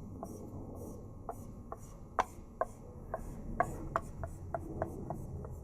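Hot ball-tipped pyrography pen working on basswood: faint scratching with irregular sharp little clicks, about two or three a second.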